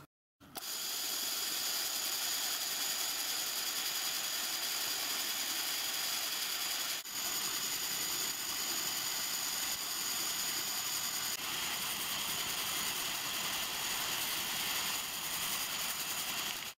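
Drilling machine running with a small 3/32-inch drill boring through a cast iron cylinder block: a steady mechanical whine over a hiss, starting about half a second in.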